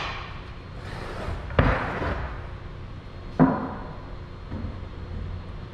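Wooden workpieces knocked down on a workbench: two sharp knocks, one about a second and a half in and a louder one a couple of seconds later that rings briefly.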